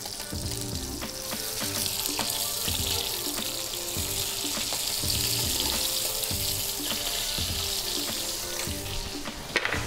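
Hake fillets frying in foaming butter and oil in a frying pan: a steady sizzle that swells a little in the middle. Background music plays underneath.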